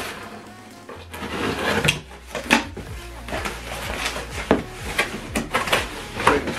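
Cardboard shipping box being opened by hand: packing tape cut and torn, and the flaps pulled open. Rustling, with about five sharp cardboard knocks and snaps.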